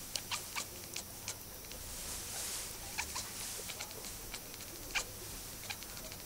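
Domestic cat chattering at a fly, a weird vibrating noise heard as a string of short, irregular clicks.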